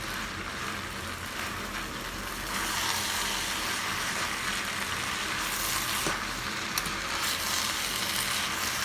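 Cooked spaghetti and vegetables sizzling in hot oil in a pan as they are stir-fried. The hiss grows louder about two and a half seconds in, and a couple of short clicks from the stirring utensil come later.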